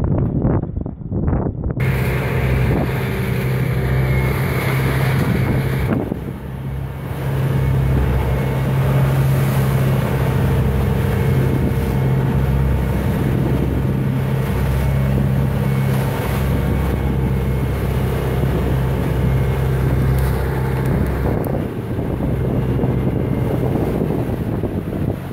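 Fishing boat's motor running steadily at one unchanging pitch, with wind rushing on the microphone; the first couple of seconds are muffled before the full sound comes in.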